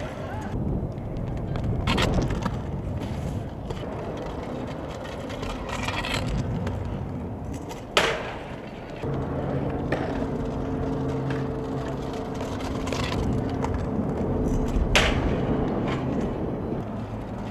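Stunt-scooter wheels rolling on concrete, with sharp metal clacks as riders pop onto and grind a metal handrail: about two seconds in, at eight seconds (the loudest), and near the end. A steady low hum runs from about nine to fourteen seconds in.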